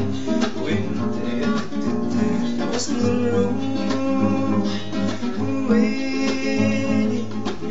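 A man singing while strumming a classical guitar, with steady rhythmic strums.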